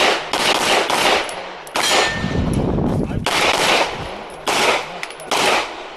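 About six pistol shots fired roughly a second apart, each sharp crack followed by a long fading echo.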